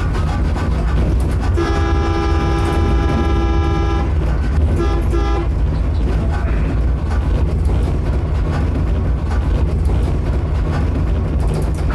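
Train horn sounding as a warning to a dog on the track: one long blast of about two and a half seconds, then a few quick short toots, over a steady low rumble of the running train.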